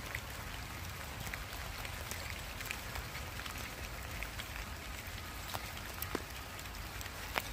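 Rain falling on wet pavement: an even hiss dotted with sharp ticks of single drops, over a low rumble.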